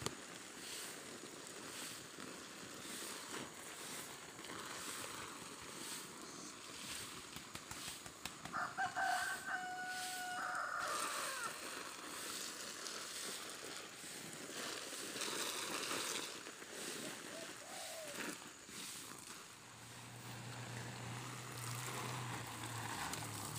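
A rooster crows once, about nine seconds in, lasting a couple of seconds, over a steady hiss of water spraying from a garden hose onto soil-filled sacks.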